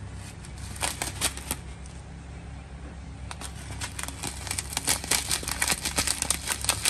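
Plastic spice packet crinkling as it is handled: a few sharp crackles in the first second and a half, then dense, rapid crinkling from about halfway through.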